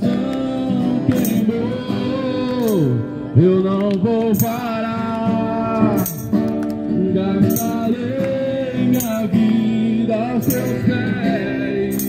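Voices singing a Christian worship song to acoustic guitar, with a tambourine jingling on the accents about every second and a half.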